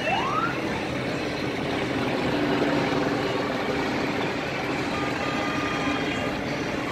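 Motorboat engines running steadily on the water as cruisers pass, with a short rising whistle just after the start.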